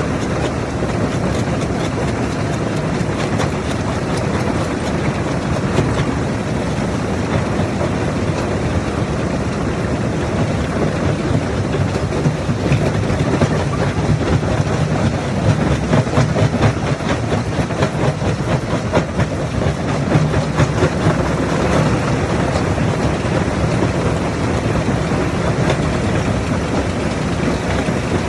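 Heavy diesel machinery running steadily at a rock-crushing job, with a constant dense clatter of knocks from rock being handled and broken.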